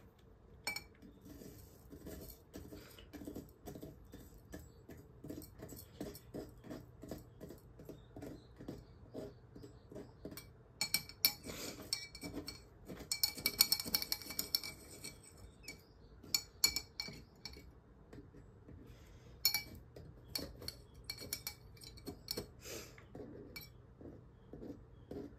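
A long metal tool working gritty substrate inside a glass terrarium cylinder: a steady run of light clicks and scrapes, with the metal striking the glass so that it clinks and rings. The clinking is busiest from about eleven to fifteen seconds in.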